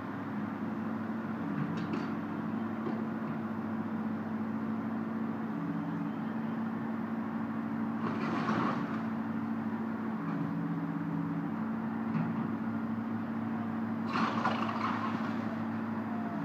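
Excavator's diesel engine running steadily, its note stepping up and down several times, with two short crashes of house debris being torn down, about halfway through and again near the end.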